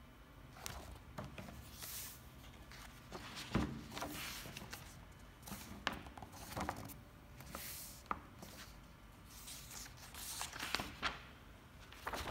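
Paper rustling and soft knocks as a glue-bound paperback book is handled: flexed at the spine, opened flat and its pages pressed and turned, in faint irregular swishes with a sharper knock about three and a half seconds in.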